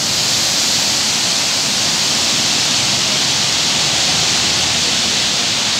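Floodwater pouring over the gate bays of a river barrage and churning in the channels below: a loud, steady rush of water.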